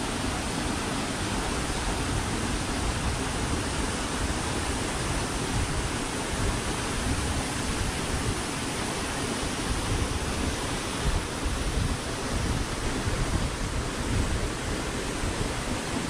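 Waterfall: a steady, even rush of falling water that holds at one level throughout.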